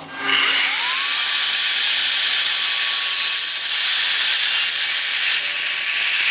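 Evolution F255SMS sliding mitre saw's 1600 W motor starting up with a whine that rises over the first second, then running steadily loud as its 255 mm tungsten-carbide-tipped multi-material blade cuts through a plywood board.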